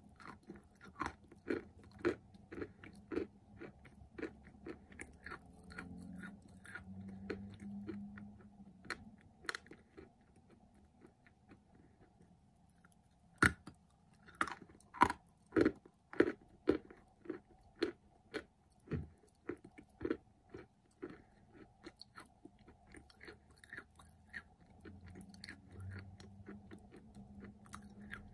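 Dry white clay with a layer of clay paste being chewed close to the mouth: a run of sharp, dry crunches. After a quieter spell about halfway, a loud crunch comes and is followed by a burst of dense crunching.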